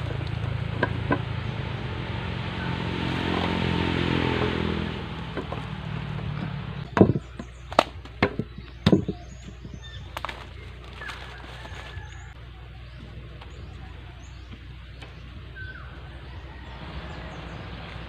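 An engine-like hum that grows louder and then stops about five seconds in, followed by a handful of sharp knocks as PVC pipe is handled and fitted onto a jet water pump.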